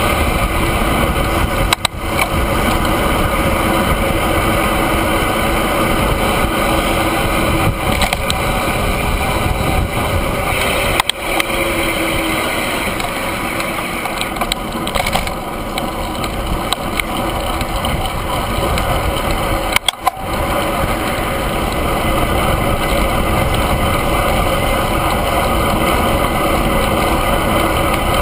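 Wind rushing over the microphone of a handlebar-mounted camera on a moving road bike: a loud, steady rush that drops away briefly three times.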